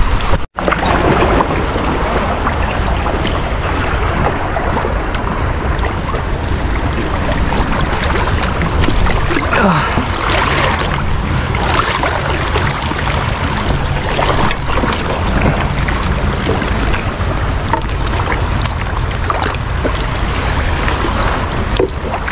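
Wind buffeting the microphone over sloshing and splashing sea water, with a few short splashes partway through. The sound drops out for an instant about half a second in.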